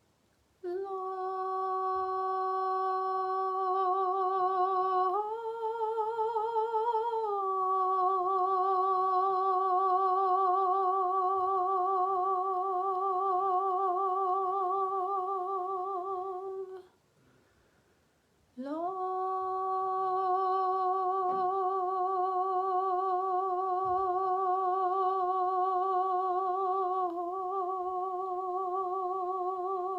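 A woman's voice humming long, held notes with a slow vibrato, a sound-healing tone. About five seconds in it steps up to a slightly higher note for a couple of seconds, then settles back. Just past the middle it stops for a breath and slides back up into the same note.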